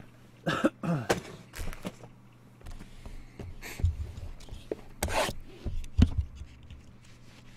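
Cardboard trading-card boxes handled and set down on a tabletop: a handful of soft knocks and clicks, two of them sharper about five and six seconds in. A brief wordless vocal sound comes near the start.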